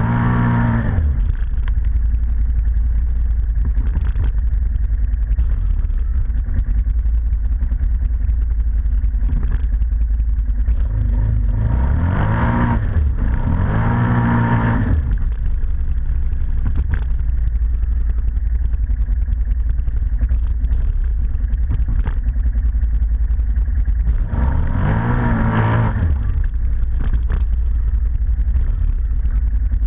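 ATV engine running under way with a steady low rumble, its revs rising and falling at the start, twice around the middle and once more near the end.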